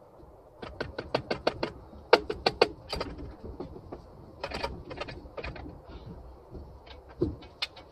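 Runs of sharp clicks and knocks from hands and tools working on a Mercury outboard powerhead hung on an engine hoist, with six quick ones about five a second near the start, more clusters in the middle, and a few near the end.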